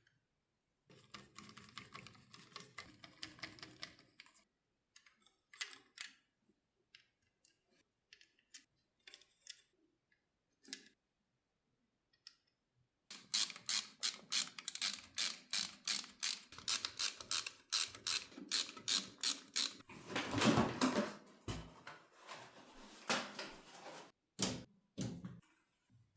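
Small hardware being handled during a PC build: scattered light clicks and taps, then a run of quick, evenly spaced ratcheting clicks, about three a second, followed by a louder scraping stretch and a few more clicks.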